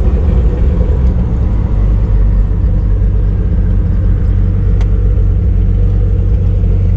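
Turbocharged Chevrolet Opala straight-six engine running steadily under way, heard from inside the car with the window open, mixed with road and wind noise.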